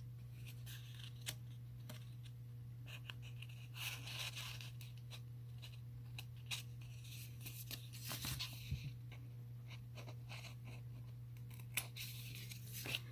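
Scissors trimming a paper planner sticker: faint, scattered snips with paper rustling between them.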